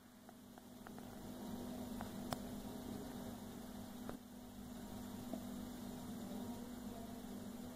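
Homemade single-coil DC motor, a copper wire coil spinning in safety-pin supports over a round magnet on a 9-volt battery, running with a steady low hum and a few faint clicks.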